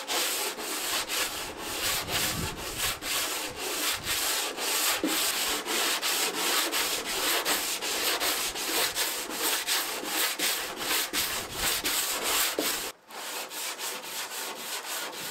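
80-grit sandpaper on a hand-held sanding block rubbed back and forth over the plywood hull of a stitch-and-glue kayak, about three strokes a second, rounding off the sharp chine edges. Near the end the strokes stop briefly and resume more softly.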